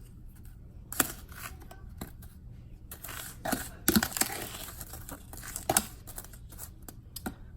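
Fried donut holes being tossed in cinnamon sugar: a gritty rustling with scattered light knocks, busiest around the middle.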